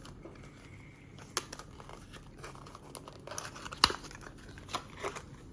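Packaging crinkling and rustling as it is handled, with scattered light clicks and one sharp knock about four seconds in.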